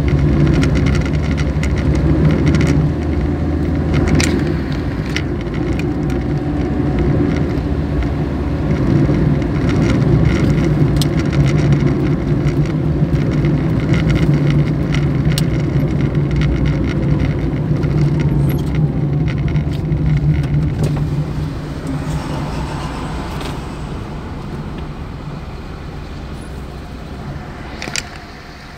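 Engine and road noise of a moving car heard from inside its cabin: a steady low drone that grows quieter over the last several seconds, with a sharp click near the end.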